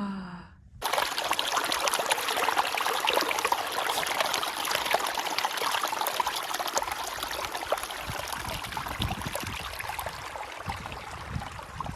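Running water trickling and splashing steadily, starting abruptly about a second in and cutting off near the end.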